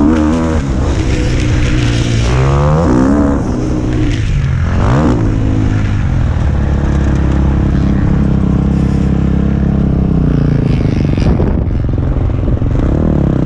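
KTM 65 two-stroke motocross bike engine, heard from a helmet-mounted camera while riding, with its revs rising and falling as the rider throttles and shifts, and holding steadier for a few seconds in the middle. Wind rush runs underneath.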